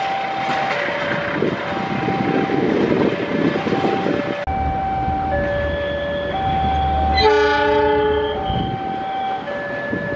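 Railway level-crossing alarm ringing in a steady two-tone alternation throughout, first over the rushing wheel noise of passenger coaches going by. After a cut comes the low rumble of an approaching KAI diesel locomotive, which sounds its horn in one blast of about a second, a little past the middle.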